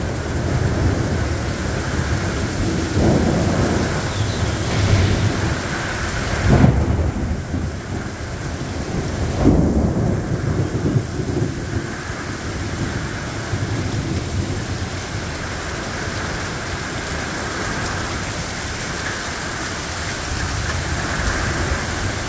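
Heavy thunderstorm rain pouring steadily, with thunder rumbling through it. The loudest claps come about a third of the way in and again a few seconds later.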